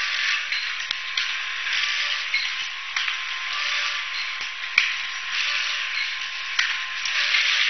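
Automatic fertilizer packaging machine running: a steady hiss that swells and eases, with a sharp click about every two seconds.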